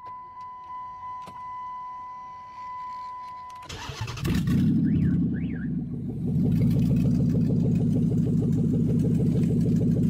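A steady high beep with a few faint clicks, then about four seconds in a car engine starts and runs steadily, getting louder about six and a half seconds in.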